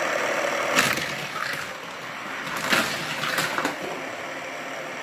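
Steady hiss with a handful of sharp clicks and knocks as a plastic toy race track and a die-cast toy car are handled.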